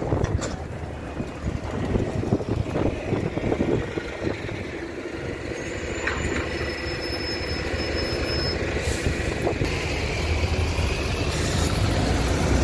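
Double-decker buses driving past close by, their engines running as they pull away, growing louder toward the end as the nearest bus passes.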